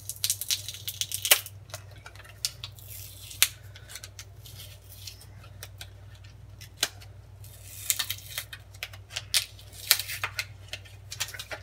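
Glued membrane keypad overlay being peeled off an oven's electronic control board: irregular crackling and sharp ticks as the still-sticky adhesive lets go, in clusters near the start and again toward the end.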